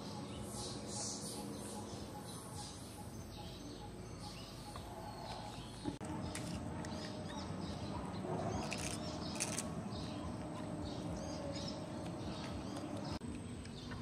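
Eurasian tree sparrows chirping in short, scattered calls, busiest about two-thirds of the way through, over a steady low background rumble.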